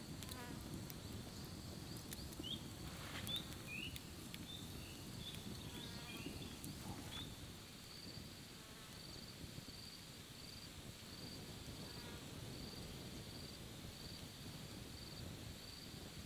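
Tropical forest insects calling: a steady high trill, with rhythmic chirp pulses about one and a half a second through the second half. Short whistled bird calls come in the first half, and a few sharp clicks sound in the first second or so, over a low background rumble.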